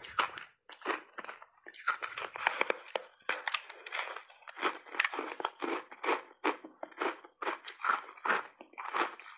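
Close-up biting and chewing of a slab of frozen layered berry ice: a fast, uneven run of crisp crunches, several a second.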